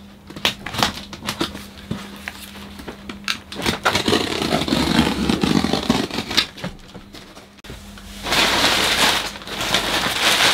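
Packing tape on a cardboard box being snipped and cut, a run of short clicks and snips, then a longer stretch of scraping on the tape and cardboard. About eight seconds in, crumpled newspaper packing rustles loudly as it is pulled out of the box.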